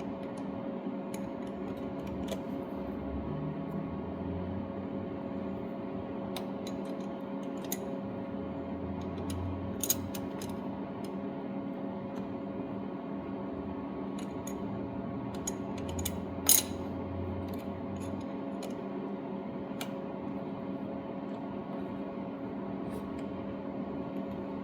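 Light metallic clicks and taps of a wrench tightening the valve-adjuster locknut on a small four-stroke cylinder head, two of them sharper, about ten and sixteen seconds in, over a steady background hum.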